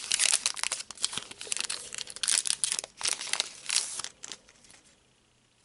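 Foil wrapper of a Pokémon TCG booster pack crinkling and tearing as it is opened, with dense crackling that stops about four and a half seconds in.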